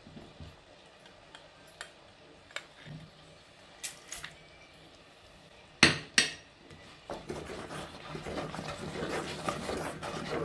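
A few faint clicks, then two sharp knocks close together about six seconds in. From about seven seconds a wooden spatula stirs thick, hot fruit jam in a clay pot, a continuous wet stirring with small clicks, as squeezed lemon juice is mixed into the finished jam.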